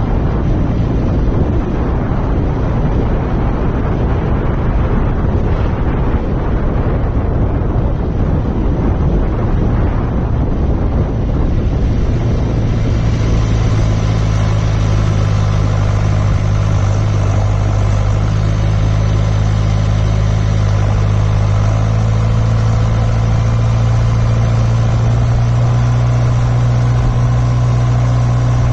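John Deere 6400 tractor's four-cylinder diesel engine running steadily. Wind buffets the microphone for about the first twelve seconds, then eases, leaving the engine's steady low note clearly on top.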